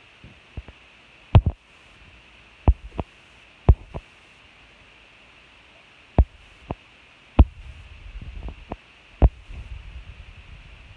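Irregular sharp knocks and thumps, a dozen or more at uneven intervals, with a low rumble between them in the second half.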